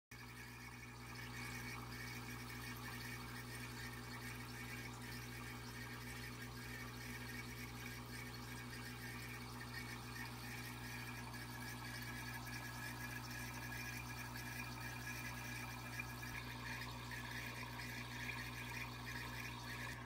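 Hang-on-back aquarium filter running: water trickling steadily with a low, constant motor hum.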